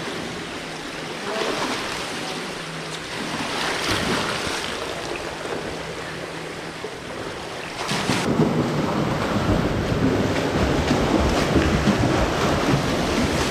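Pool water splashing from a swimmer doing the breaststroke-to-freestyle turn. A few separate splashes of breaststroke strokes come first; from about eight seconds in there is louder, continuous splashing of freestyle arm strokes and kicks.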